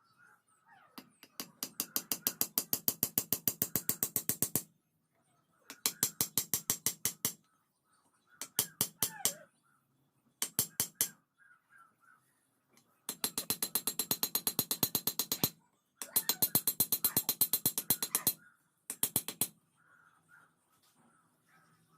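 Rapid hammering on metal in seven bursts of about ten blows a second, the longest lasting two to three seconds, as khukuri blade steel is forged. Faint bird chirps come between the bursts.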